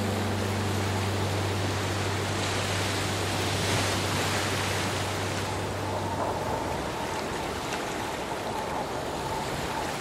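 Sea waves washing and breaking continuously, one wave swelling louder about four seconds in. The low notes of an acoustic guitar chord ring on underneath and fade out by about six seconds.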